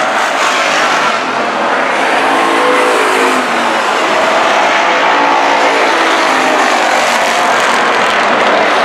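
Several race cars running laps on a dirt oval, their engines loud and continuous. Engine pitch rises and falls as the cars pass through the turns and down the straight.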